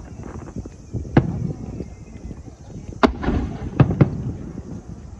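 Fireworks shells bursting overhead: a loud bang about a second in, then three more close together about three to four seconds in.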